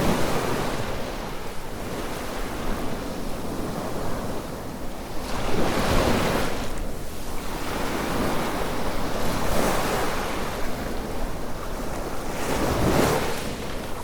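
Small waves breaking and washing onto the beach, swelling every few seconds over a steady rush of wind.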